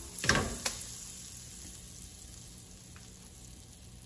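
Butter melting in a skillet over a gas burner, sizzling faintly and steadily. In the first second the pan is shifted on the stove grate with a couple of sharp knocks.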